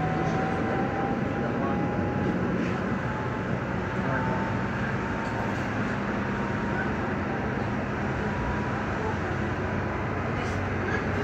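Stadtbahn light-rail train running along the track, heard from inside the passenger compartment: a steady rolling rumble with a faint whine that rises slowly in pitch over the first few seconds.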